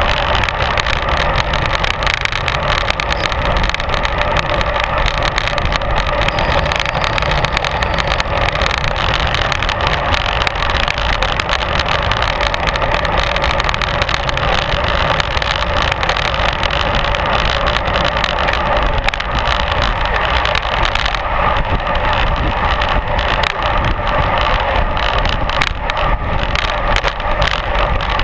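Steady wind and road noise from a camera mounted on a racing bicycle riding at speed in a group of cyclists: wind buffeting the microphone over the hum of the tyres on tarmac.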